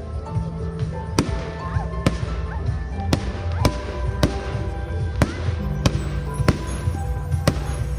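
Fireworks display: a string of sharp bangs, roughly one every half second to a second, over music with a heavy bass line.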